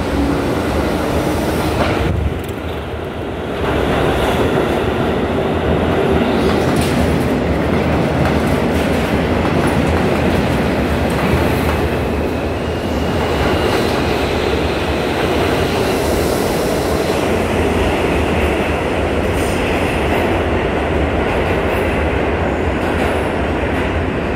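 R42 subway cars running as a garbage (refuse) train through an underground station without stopping, with a steady rumble and clatter of wheels on rails. A high wheel squeal rises now and then in the second half.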